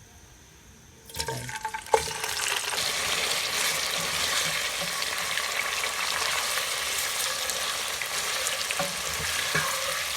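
Boiled chicken pieces frying in hot oil, steady sizzling. It starts about a second in with a clatter and a sharp knock.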